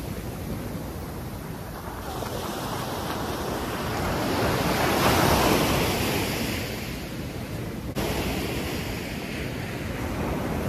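Ocean surf breaking and washing up the beach, with wind rumbling on the microphone. The wash swells to its loudest about halfway through, then eases off.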